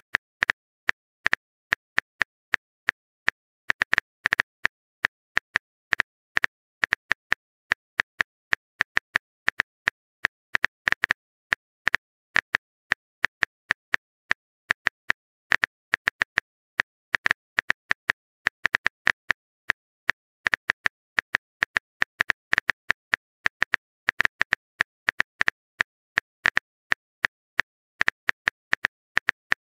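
Phone keyboard typing sound effect from a texting-story app: a rapid, uneven run of short clicks, one per letter as a message is typed, several a second with brief silent gaps between.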